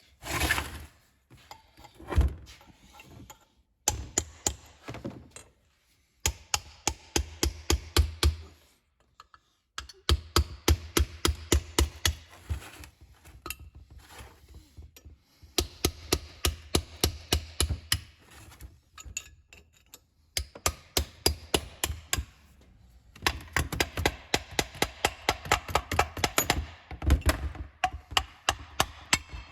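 Hammer driving a steel chisel to split apart an S300V turbocharger, struck in runs of quick blows about four a second with short pauses between the runs. The housing is stuck with rust and corrosion.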